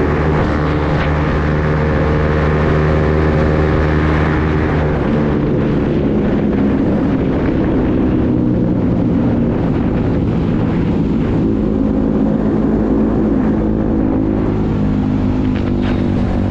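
Motorcycle with a loudened exhaust, riding at a steady speed. The engine note holds steady for about five seconds, then gives way to rushing wind and road noise, with the engine fainter beneath.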